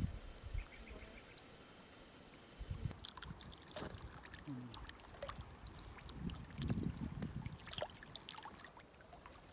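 Faint small waves lapping at a lake's edge, with scattered little splashes and clicks and a few soft low swells.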